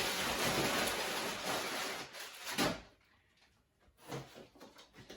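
Shipping packaging rustling and crinkling as it is handled for about two seconds, then a sharp knock about two and a half seconds in, followed by a few faint taps.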